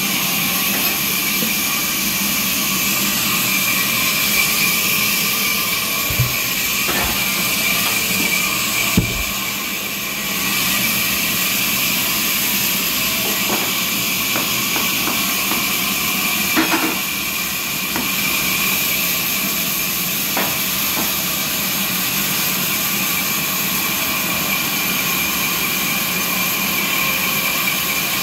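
Sawmill machinery running steadily with a constant high whine and hiss, with a few scattered knocks.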